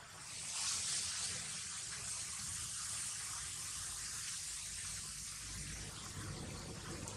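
A steady high hiss of outdoor background noise swells in over the first second and then holds evenly.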